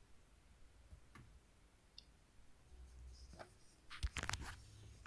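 Faint scattered clicks, then a short run of louder clicks and knocks about four seconds in, from the car radio's controls being worked as the volume is turned up.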